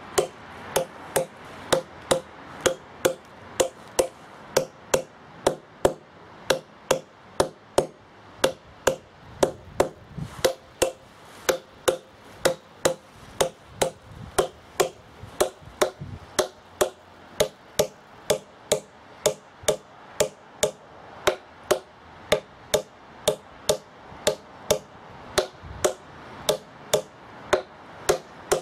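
A hammer giving slow and easy taps to steel wedges set in feathers along a drilled line in a bluestone slab, about two strikes a second, each a sharp metallic clink with a short ring. The wedges are being driven in turn, a little at a time, to build up even pressure and split the slab.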